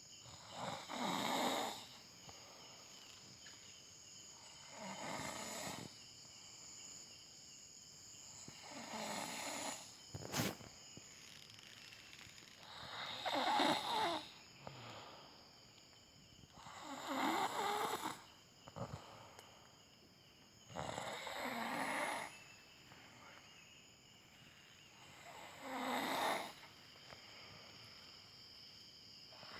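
A sleeping person snoring, one snore about every four seconds, seven in all. A single sharp click about ten seconds in.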